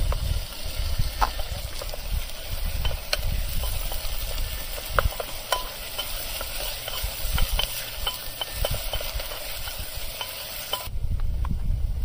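Onions frying in hot oil in a pan, a steady sizzle with scattered clicks and scrapes of stirring, over a low rumble. The sizzle drops away suddenly near the end.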